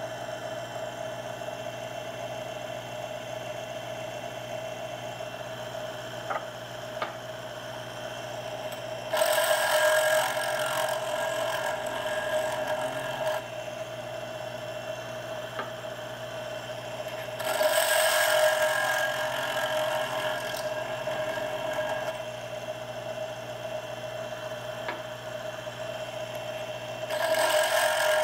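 Giraud power case trimmer's motor running with a steady hum. Three times the sound swells into a louder cutting noise for a few seconds as a brass rifle case is pressed into the spinning cutter head, which trims the case to length and chamfers and deburrs the mouth in one pass.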